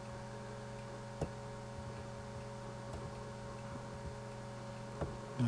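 Steady electrical hum with one sharp mouse click about a second in and a few faint ticks after it.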